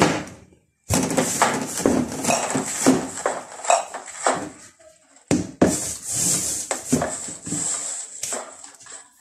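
Plastic storage boxes and containers being shifted and set down on a cupboard shelf: an irregular run of knocks, clatter and rustling that stops briefly twice.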